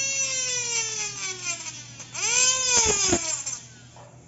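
Dental lab micromotor spinning a bur that grinds down an acrylic occlusal plate. The high whine sinks in pitch as the bur bites into the acrylic, spins back up about two seconds in, and sinks again.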